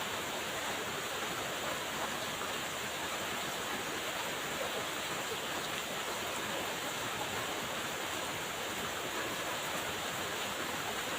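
Steady rain falling, an even, unbroken hiss with no single drops or pauses standing out.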